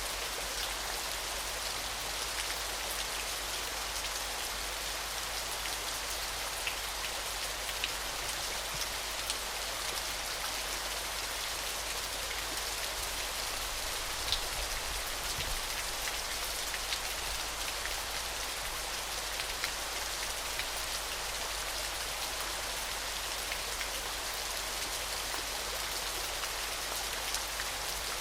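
Waterfall: a steady hiss of falling, splashing water, with a few faint scattered drip-like ticks.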